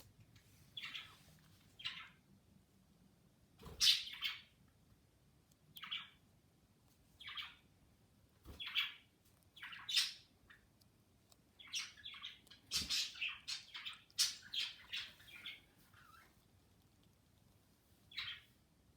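A budgerigar chirping in short, scattered calls, with a quicker run of chirps about two-thirds of the way through. A few soft clicks or knocks come in between.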